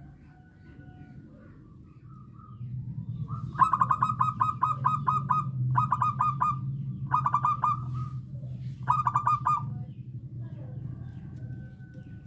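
Zebra dove (perkutut) cooing in four runs of quick staccato notes, each run lasting about a second or two, over a steady low hum.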